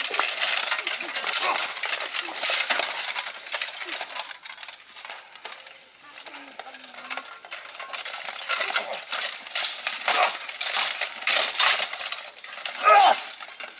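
Steel plate armour clanking and swords clashing in a close armoured sword fight: rapid, irregular metallic clinks and rattles throughout, with a louder clash near the end.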